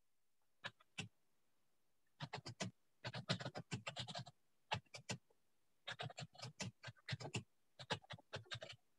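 Computer keyboard typing: quick runs of key clicks with short pauses between them, faint.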